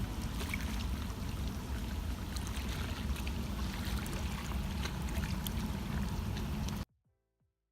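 Water lapping and trickling against shoreline rocks over a steady low rumble, with scattered small clicks; it cuts off abruptly near the end.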